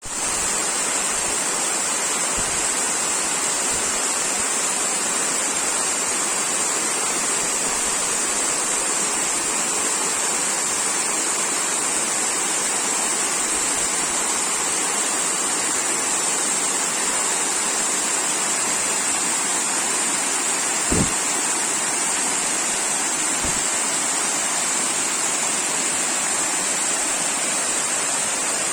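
Mountain waterfall rushing steadily, with one brief low bump about three-quarters of the way through.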